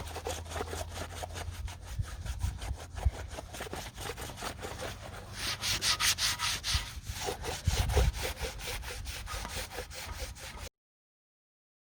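Rapid back-and-forth scrubbing or scraping strokes, about five a second, like dirty engine parts being cleaned by hand. The strokes get louder in the middle and stop abruptly near the end.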